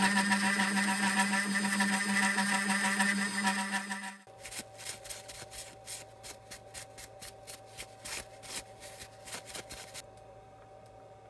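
CNC milling machine spindle running a 3 mm end mill as it drills a pilot hole into a bevel gear's hub: a steady pitched whine with cutting hiss that stops suddenly about four seconds in. A run of light metallic clicks and knocks follows as the gear is handled in the vise.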